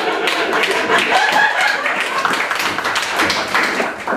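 Small audience clapping: many quick claps overlapping, with a few voices mixed in.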